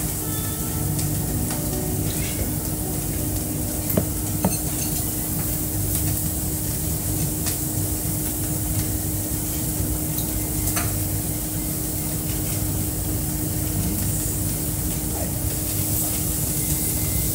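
Restaurant table sound: a steady sizzling hiss over a constant low hum, with a few light clicks of chopsticks and dishes.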